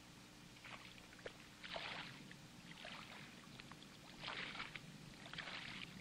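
Shallow water splashing underfoot as someone wades, in short faint splashes about once a second.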